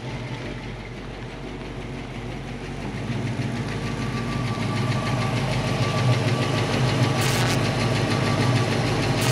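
1966 Ford Mustang coupe's factory V8 running as the car drives slowly toward the listener, its steady exhaust note getting louder from about three seconds in.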